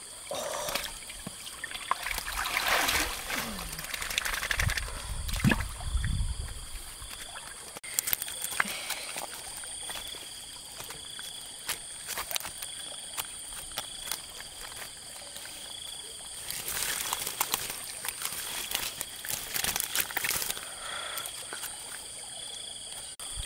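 Water sloshing and trickling, with splashy stretches about two to four seconds in and again from about sixteen to twenty seconds, over a steady high-pitched buzz.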